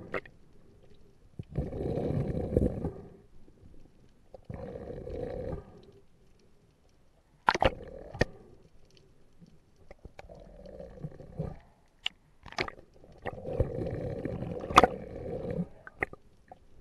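A diver breathing through a snorkel, heard through an underwater camera housing: rough, gurgling breaths every few seconds. Between them come a few sharp clicks and knocks as the speared horse mackerel is handled.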